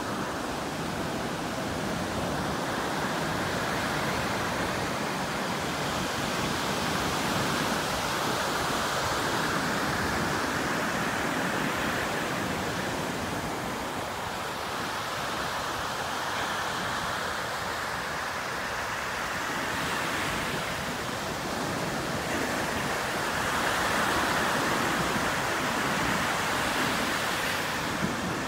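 Ocean surf breaking and washing up the beach: a steady rush of noise that swells and eases, fuller about a third of the way in and again near the end.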